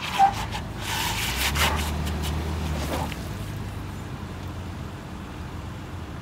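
Nissan Patrol Super Safari's 4.8-litre straight-six engine pulling under load as the truck crawls over uneven ramps. Its note swells for about two seconds, then settles back to a steady low run. A sharp thump comes just at the start.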